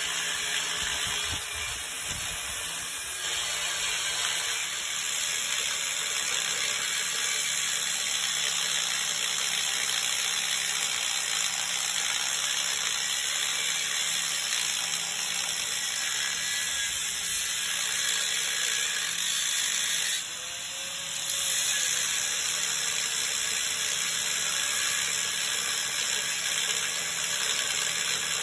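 Corded electric angle grinder running steadily against metal, grinding a notch so that a Gen 3 LS oil pan clears a Gen 4 truck. It eases off for a moment about twenty seconds in, then carries on.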